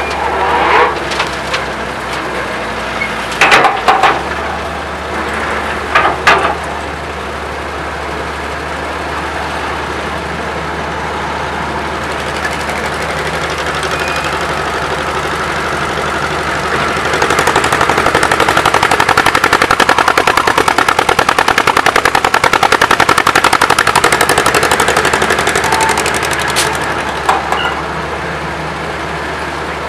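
Vintage Weserhütte Pionier cable excavator at work: its diesel engine runs steadily, with three bursts of loud clanks in the first several seconds. About halfway through the engine speeds up into a louder, fast rattling chug for about nine seconds, then settles back.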